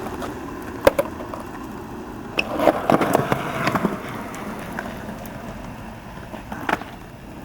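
Skateboard wheels rolling on pavement, with a sharp clack of the board about a second in and a flurry of board knocks and scrapes about three seconds in, as a skater tries a trick.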